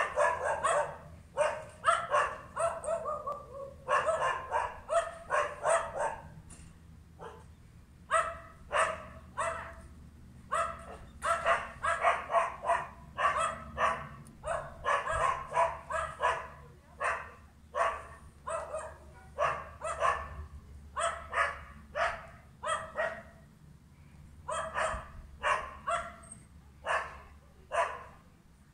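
Two dogs barking nonstop in rapid volleys, with a short break about seven seconds in: alarm barking at a visitor to the house.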